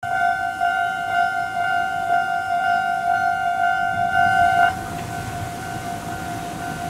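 Railway level-crossing warning bell ringing, an electronic tone repeating about twice a second. About five seconds in it drops suddenly in level and keeps ringing more faintly.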